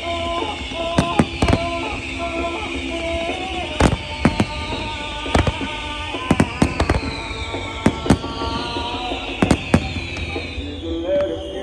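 Fireworks going off in many sharp bangs and crackles, with falling whistles repeating about every two seconds, over music.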